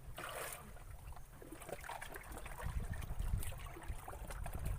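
Water lapping and trickling, with a short splash-like hiss just after the start and a steady low wind rumble on the microphone.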